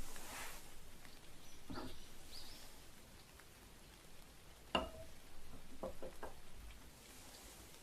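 Teaware being handled: a few light taps and small clicks, with one sharper clink that rings briefly about five seconds in.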